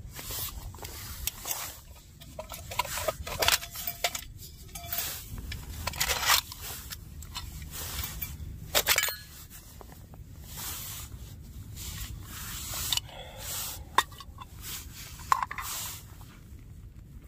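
Handling noises: irregular rustling, scraping and sharp clicks as camping gear is moved about and unpacked.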